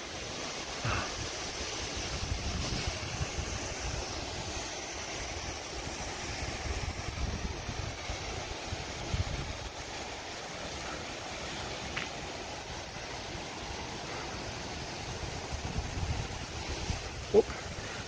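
Steady rushing roar of the Yumbilla waterfall's falling water, with gusts of wind buffeting the phone microphone at times.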